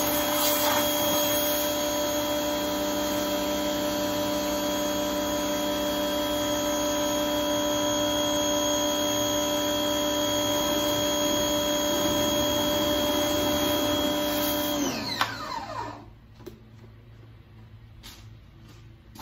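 Small electric pressure washer's motor and pump running with a steady whine while the wand sprays, then shutting off about fifteen seconds in, the whine falling in pitch as it winds down.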